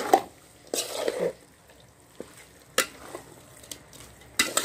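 A spoon stirring and scraping shredded cabbage and chicken against the inside of a metal cooking pot, in four short scrapes spread across the few seconds.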